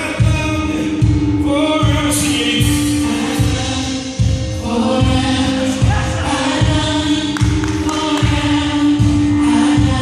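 Live gospel music: a vocal group singing together in harmony over a band, with a steady, heavy bass beat.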